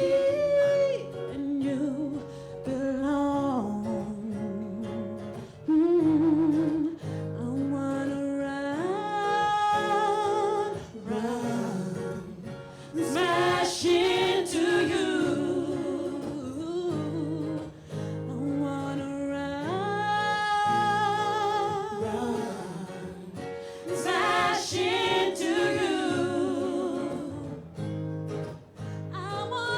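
Women singing a pop-soul medley live, with long held notes, vibrato and runs, over a steady chordal accompaniment.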